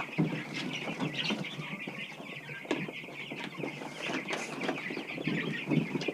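A flock of broiler chickens calling, many short chirps and clucks overlapping without pause, with scattered light knocks among them.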